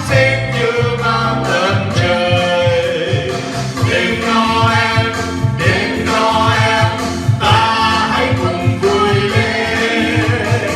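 A Christmas song: singing voices over instrumental accompaniment with a pulsing bass line.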